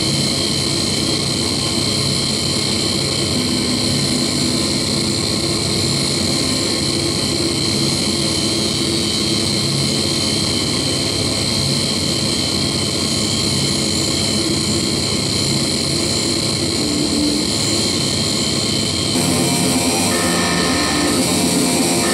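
Harsh electronic noise music: a dense, steady wall of noise with a held high tone and lower droning hums. Near the end it turns brighter and a little louder, with a choppy, stop-start layer on top.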